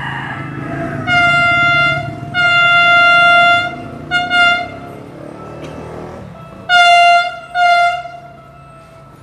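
Train horn sounding a series of blasts on one steady pitch: two long blasts, two short ones in quick succession, then two more near the end. A low rumble runs underneath and fades about two-thirds of the way through.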